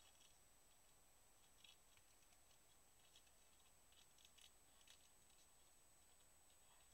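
Near silence with a few faint, short scratching clicks, the young brown bear's claws gripping tree bark as it climbs, under a steady faint high-pitched whine.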